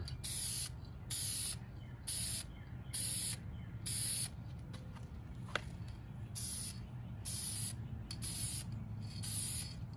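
Aerosol spray can of vinyl and fabric paint hissing in short bursts, about one a second, with a pause of about two seconds in the middle, as a light coat is laid on in layers. A single sharp click about five and a half seconds in.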